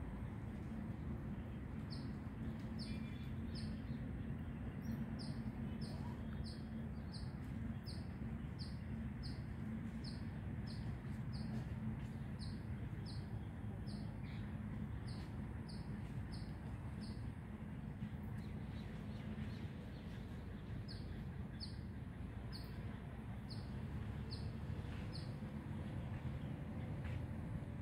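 A small bird chirping over and over: short high notes a little more than once a second, with a pause of a few seconds past the middle before it starts again. Under the chirps there is a steady low rumble.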